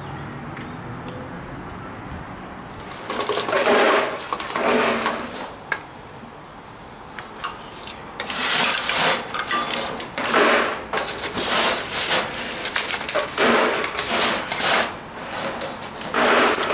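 Coal clattering and scraping in a small metal scoop and at the firebox door of a 5-inch gauge live-steam model locomotive as the fire is fed. It comes in short irregular bursts of about half a second to a second each, some eight times.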